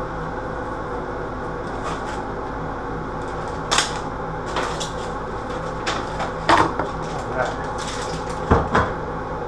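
A few scattered knocks and clatters, some in quick pairs, as a new medicine cabinet and its mirrored door are handled and opened during unpacking, over a steady background hum.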